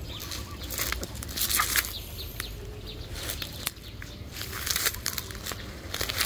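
Footsteps crunching through dry leaves and weeds, with irregular rustles and sharp crackles, over a steady low rumble.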